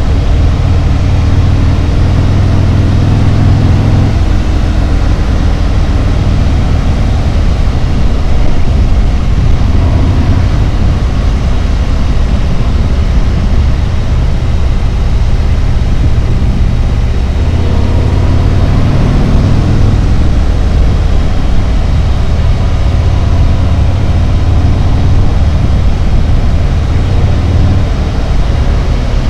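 Harley-Davidson Road Glide's V-twin engine running under way, over steady wind and road noise. The engine note drops about four seconds in and climbs again a little past halfway as the bike picks up speed, then holds.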